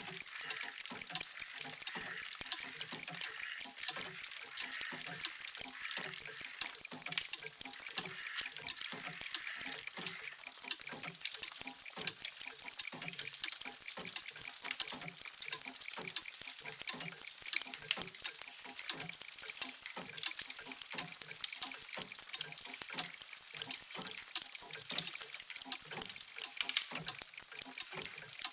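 Many mechanical clocks ticking at once, their ticks overlapping into a steady, dense clatter of fast clicks.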